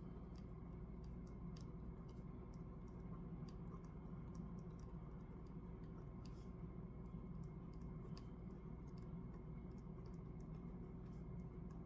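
Pen writing on paper: faint, irregular light clicks and taps of the pen strokes over a steady low room hum.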